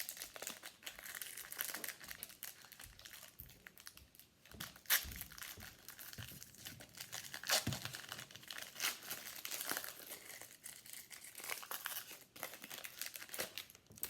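Foil wrapper of a football trading-card pack being torn open and crinkled, a continuous crackle with a few louder snaps about five and seven and a half seconds in.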